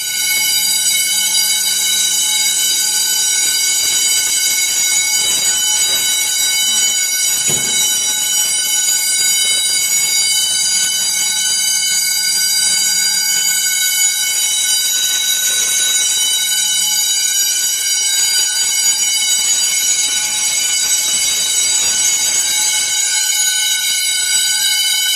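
Apartment building fire alarms ringing continuously at a steady pitch, with a cluster of high, shrill tones. It is a false alarm, set off by someone sawing wood inside a unit.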